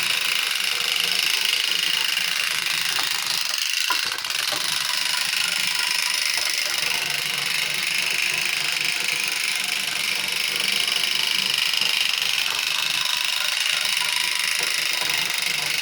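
Arnold Mac 700 clockwork toy motorcycle running, its built-in noise mechanism giving a steady motorcycle-like buzz, with a brief dip about four seconds in.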